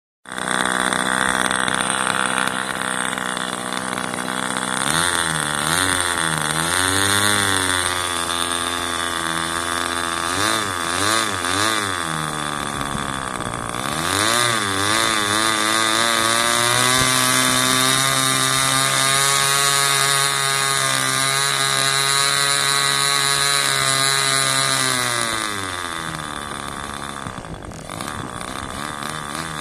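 Enya SS30 two-stroke glow engine running on a test stand with its propeller turning. The revs surge up and down for the first half, then hold steady and high before dropping to a lower, steady speed near the end.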